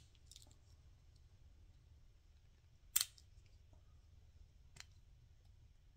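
Victorinox Swiss Champ pocket knife tools clicking on their backsprings as they are handled. There is one sharp click about three seconds in and a fainter one near the five-second mark, over a low steady hum.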